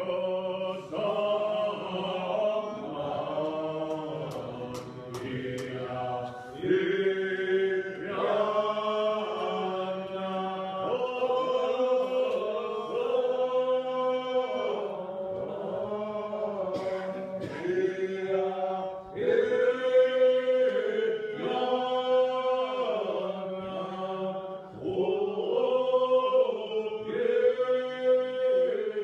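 Congregation singing a Muscogee (Creek) language hymn, many voices holding long, slow notes in phrases of a couple of seconds each.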